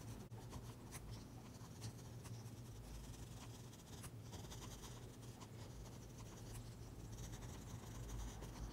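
Mechanical pencil lead scratching on paper in many short, faint sketching strokes, over a low steady hum.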